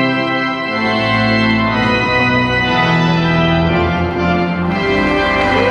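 Church organ playing held chords that change every second or so, with deep bass notes coming in about a second in.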